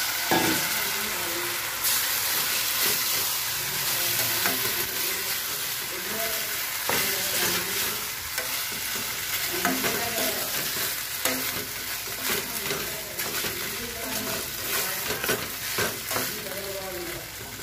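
Fried potato strips sizzling in a metal pan as a thick sauce is stirred through them with a steel ladle. The ladle scrapes and clicks against the pan over a steady hiss of frying.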